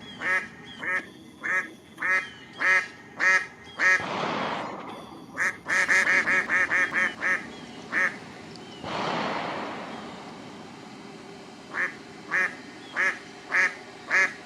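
Duck quacking in a regular series, roughly one to two quacks a second, with a quick run of quacks in the middle and a short pause before the quacking resumes. Two brief rushes of noise break in, about four and nine seconds in.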